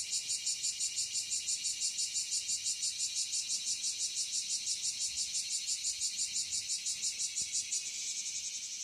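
Fingernails scratching a cat's fur in quick, even strokes, about five a second. The strokes speed up near the end, then stop abruptly.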